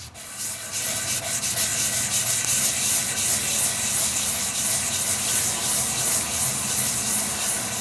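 600-grit sandpaper rubbed by hand over the filled finish of a bass guitar body: a steady scratchy sanding noise made of quick back-and-forth strokes.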